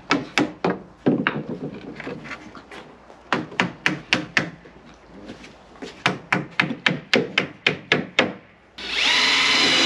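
A rubber mallet tapping on pine boards, seating the parts of a wooden bed frame: bursts of quick knocks, several a second, with short pauses between them. Near the end a loud steady whine lasts about a second.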